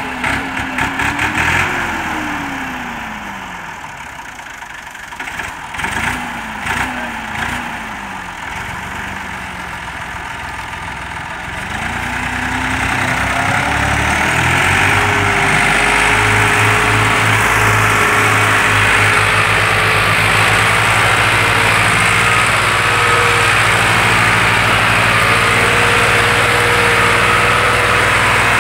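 Massey Ferguson tractor's diesel engine revving up and down in short blips. About halfway through it climbs to a steady, hard-working high-revving run as it pulls a heavily loaded sugarcane trolley, the load showing in thick black exhaust smoke.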